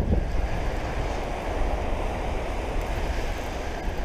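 Ocean surf washing onto the beach, mixed with wind rumbling on the microphone: a steady hiss and low rumble with no distinct events.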